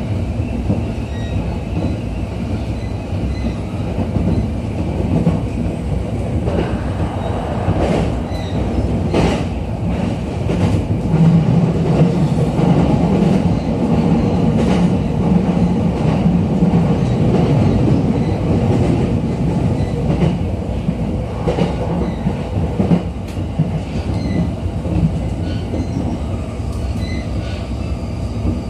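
Running noise inside a JR East E231-series commuter train car in motion. A steady rumble of wheels on rail is broken by occasional clicks over rail joints, and it grows louder in the middle stretch.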